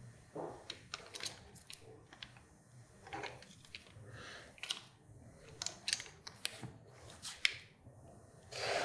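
Scattered small plastic clicks and ticks from hands working the motorcycle's left handlebar switch housing and its wiring, with a louder, longer rush of noise near the end.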